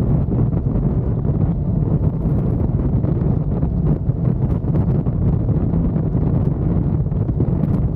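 Loud wind noise buffeting the microphone on a moving motorcycle: a steady, low rumble.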